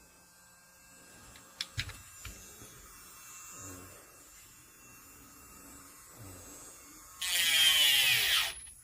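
A few light clicks, then an electric nail drill's handpiece motor whirring loudly for about a second and a half near the end, its pitch sliding as it runs.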